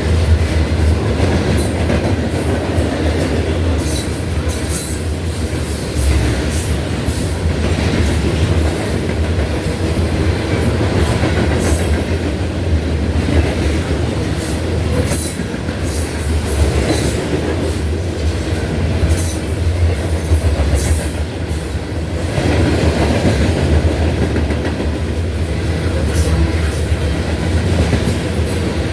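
Norfolk Southern freight train rolling past. It makes a steady, loud rumble of wheels on rail, with frequent sharp clicks and clacks from the wheels on the track.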